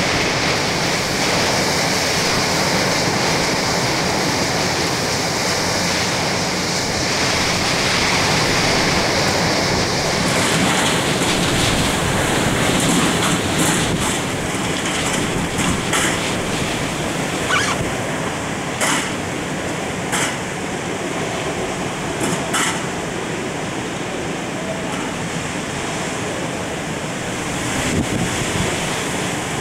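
Hurricane Isaac's eyewall winds and driving rain, a steady rushing noise that carries through the whole stretch. In the second half come several short, sharp knocks or clatters.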